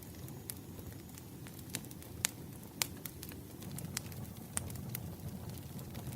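Wood fire burning: a steady low rumble with scattered sharp crackles and pops of the logs, the loudest two about two and three seconds in.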